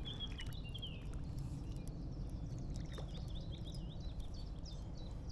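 Small birds twittering in short wavering chirps, early on and again after about three seconds, over a steady low outdoor rumble.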